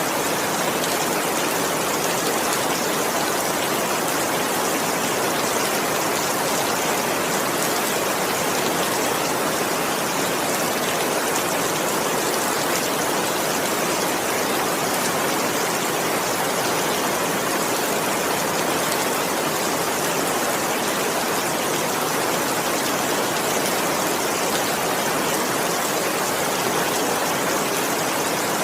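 Heavy rain falling in a dense, steady hiss, even throughout, with no thunder or single drops standing out.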